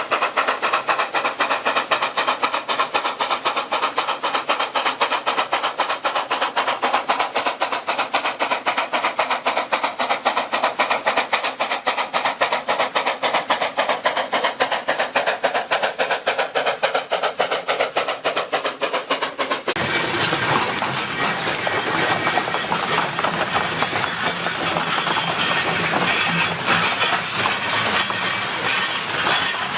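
C2 narrow-gauge steam locomotive and its train running, with a rapid, even beat for about twenty seconds; then the sound changes abruptly to a denser, fuller running noise that goes on to the end.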